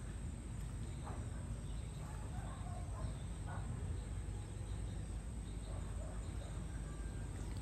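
Outdoor ambience: a steady low rumble with a few faint, short bird calls in the first few seconds.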